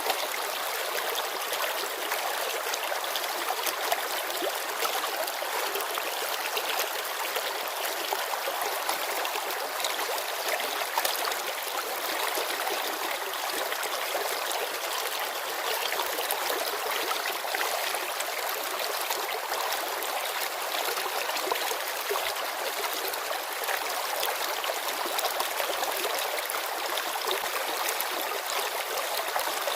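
Shallow mountain river flowing and babbling over stones: a steady, even rush of water with fine splashing and no pauses.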